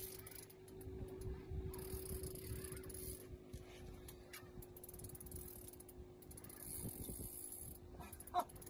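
Fishing reel being cranked against a hooked striped bass, its gears and clicks running over a steady low hum.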